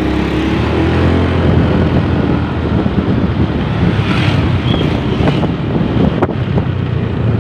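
Riding a motorcycle along a road: its engine running under wind buffeting the microphone, with other motorbikes passing close by.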